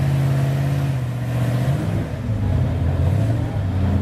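Rock crawler's engine running hard under load on a steep climb: a steady high-revving note for the first couple of seconds, then the pitch drops and wavers as the revs fall and pick up again.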